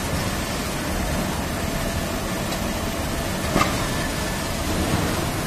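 Steady mechanical running noise of a toilet paper production line's machinery, with one sharp click about three and a half seconds in.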